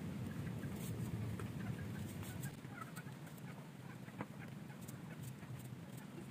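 Kitchen knife slicing rounds off a fresh cucumber by hand: scattered short, crisp cuts over a steady low rumble that eases a little partway through.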